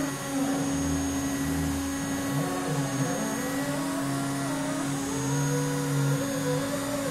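CNC router running a program in the air, cutting nothing: a steady motor tone under the whine of the axis drive motors, whose pitch glides up and down as the gantry speeds up, slows and holds speed.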